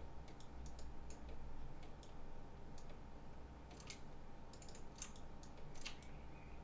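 Scattered, irregular clicks of a computer mouse and keyboard as someone works in 3D modelling software, over a faint steady hum.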